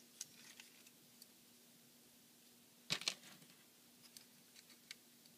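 Faint clicks and taps of plastic action-figure parts being handled, with a pair of sharper clicks about three seconds in.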